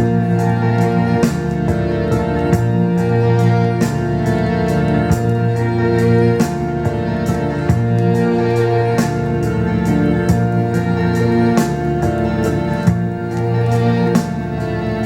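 Instrumental music with held chords and a steady beat, played back through a pair of Bowers & Wilkins 802 D4 loudspeakers.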